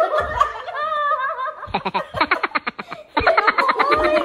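A group of people laughing hard together. A high, wavering squeal comes first. About a second and a half in it turns into rapid, breathy bursts of laughter, and after a brief break a second run of laughing follows.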